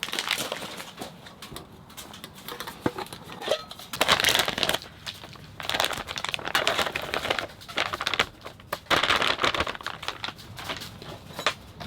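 Plastic food packaging being handled and opened, crinkling and rustling in several bursts.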